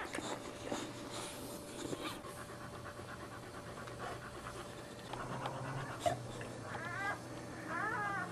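A Boxer bitch panting while whelping, with newborn puppies giving a couple of short, high squeaking cries near the end.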